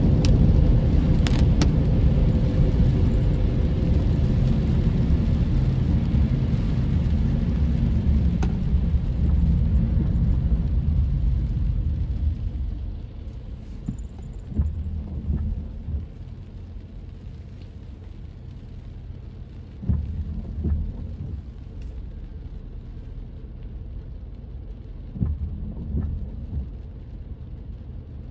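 Car cabin noise while driving on a wet road: a steady low rumble of tyres and engine that fades about twelve seconds in as the car slows to a stop. After that a quieter low hum remains, broken by short low thumps every five or six seconds.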